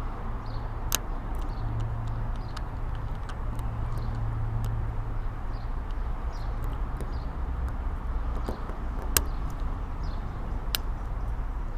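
Faint metallic ticks and clicks of a lock pick and tension wrench working the pins of an Abus 90/50 Titanium padlock, with three sharper clicks about a second in and twice near the end, over a steady low background rumble.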